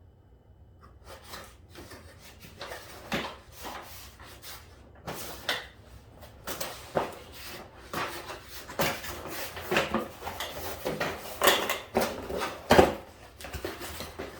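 A parts box being unpacked by hand: irregular rustling, scraping and clacking knocks of packaging and parts, starting about a second in, with the sharpest knock near the end.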